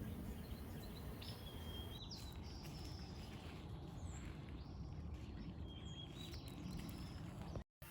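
Faint outdoor ambience with a steady low background rumble, broken by a few brief, high bird chirps.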